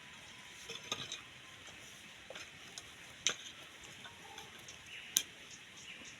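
Scattered light clicks and knocks, a few small ones about a second in and a sharper single knock about five seconds in, over a faint steady hiss.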